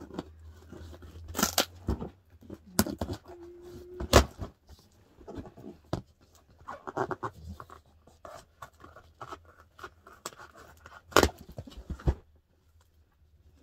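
Scissors cutting and tearing through the tape and wrapping of a parcel: irregular snips, rips and rustling with several sharp clacks. It goes quiet about a second before the end.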